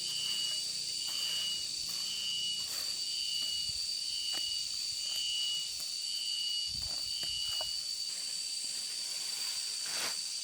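Insects droning: a steady high whine, with a second chirping call pulsing about one and a half times a second that stops near the end. Scattered faint knocks.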